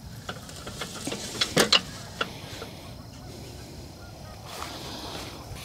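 Tube-shaped live trap knocking and clicking as it is shifted on its small ladder prop, the loudest knocks about a second and a half in, with geese honking in the background.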